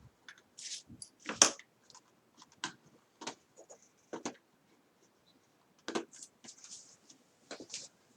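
Scattered small clicks, taps and light scrapes of screws and a screwdriver being handled as small screws are set back into the laptop's screen frame. The loudest click comes about a second and a half in, with a few more spread across the rest.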